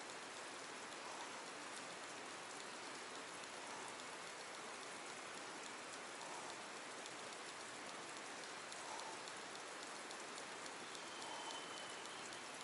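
A faint, steady hiss of water like rain on the surface, with a soft blip about every two and a half seconds and scattered light ticking.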